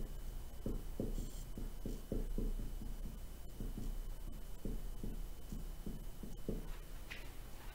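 Dry-erase marker writing on a whiteboard: irregular soft taps and strokes, a few per second, with a brief scratchy stroke about a second in.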